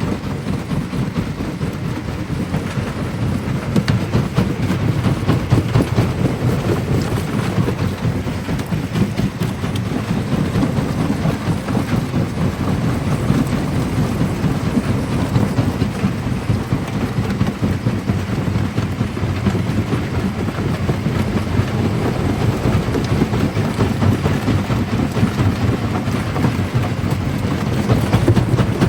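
Large primary jaw crusher breaking black stone: a continuous low rumble with dense, rapid crackling and clattering of rock.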